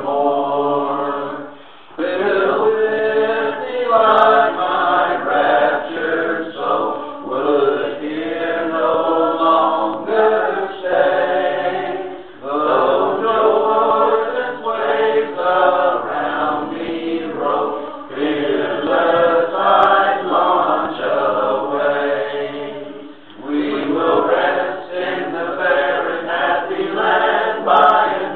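A group of voices singing a hymn together, in long sung phrases with a short pause for breath about every ten to eleven seconds.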